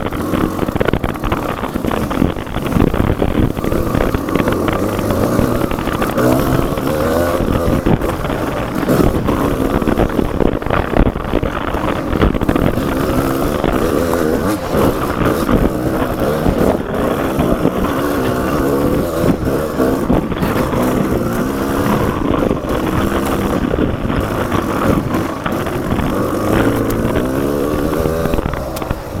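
Off-road motorcycle engine running on a trail, its pitch rising and falling continuously as the throttle is worked, with small knocks and rattles from the bike over rough ground.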